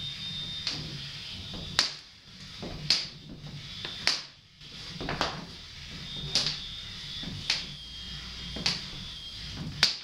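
Belts whipped flat against the floor, a sharp slap about once a second, over a low steady hum.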